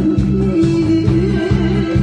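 Loud backing music with a steady beat, an organ-like keyboard melody over a bass line.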